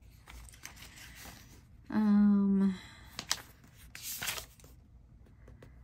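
A short hummed "mm" from a person about two seconds in, then paper rustling as a notebook page is turned, loudest about four seconds in.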